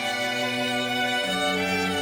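Background music played on strings, with held, slow chords that change about a second in.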